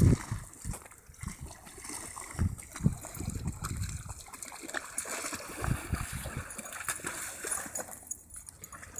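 Dogs wading and splashing through a shallow creek, with a few short low thumps along the way.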